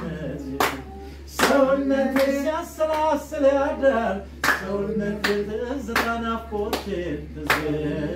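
A man singing unaccompanied, with hand claps keeping a steady beat, a little more than one clap a second.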